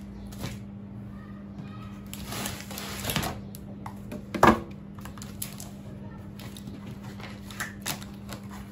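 Handling of gift items on a table: paper and packaging rustling, small things clicking as they are set down, and one sharp knock about four and a half seconds in, over a steady low hum.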